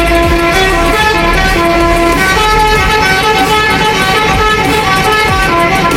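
Bus telolet horn playing a tune: a run of bright horn notes stepping from pitch to pitch, over the low rumble of the bus engine.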